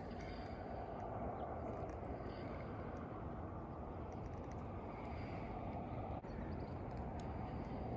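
Steady low outdoor rumble with no distinct event, a few faint light ticks over it.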